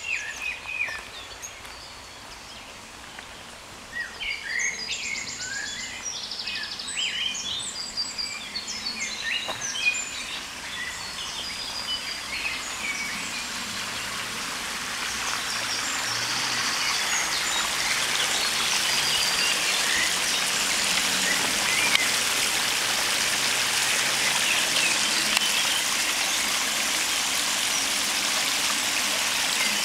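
Songbirds singing in short chirps and phrases, then the rush of water spilling over a small weir growing steadily louder until it drowns them out.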